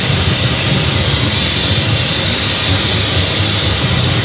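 Loud, dense electronic noise music played live: a steady wash of low rumble and hiss with no clear melody, the hiss brightening about a second in and thinning near the end.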